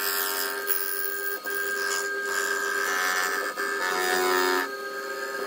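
CNC milling machine face-milling a cast aluminium engine crankcase: a steady whine of several tones over a hiss, shifting in pitch every second or so as the cutter works across the part.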